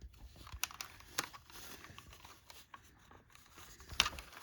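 Plastic clicks and rustling of a First Alert SA6070 smoke alarm being handled while a battery is fitted, with a few sharp clicks, the loudest about four seconds in.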